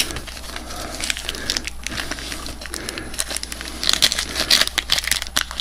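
Crinkling and crackling of a trading card pack's thin plastic wrapper as fingers pick at it to get it open.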